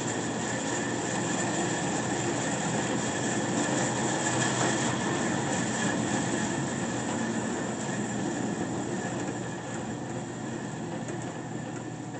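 16-inch Doall Model ML vertical bandsaw running at high speed in its high gear range: a steady whir of blade and drive with a faint high tone, easing a little quieter near the end.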